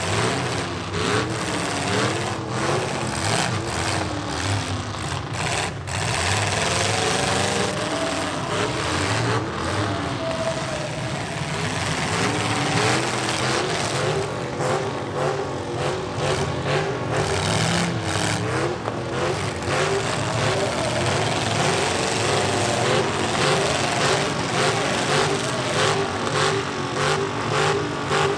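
Several demolition derby trucks' engines running and revving at once, their pitch repeatedly rising and falling, over a rough low rumble.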